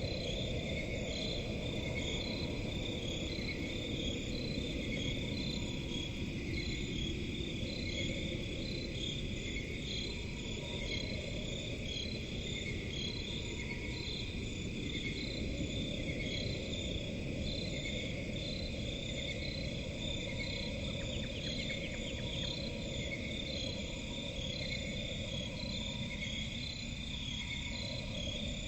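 Swamp crickets chirping in an even, repeating rhythm over a continuous low rumbling background.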